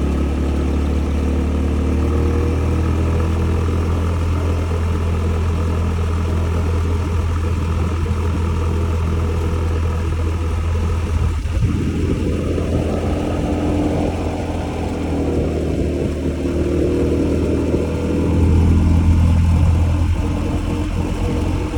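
Honda Zoomer 110 scooter's single-cylinder engine running steadily while riding, with wind noise on the microphone. A broad swell of noise rises and falls for several seconds past the middle, and the engine hum grows louder near the end.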